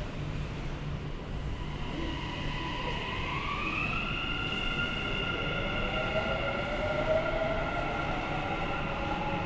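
Dubai Metro train running, an electric whine over a steady low rumble. The whine rises in pitch about three to four seconds in and then holds, and a second, lower whine rises a few seconds later.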